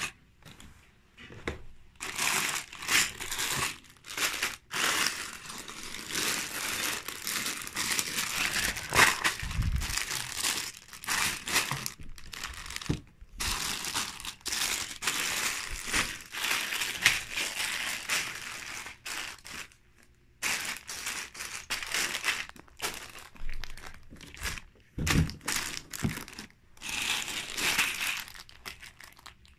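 Sealed plastic bags of LEGO pieces being handled: plastic crinkling in irregular bursts with short pauses, and a couple of low thuds.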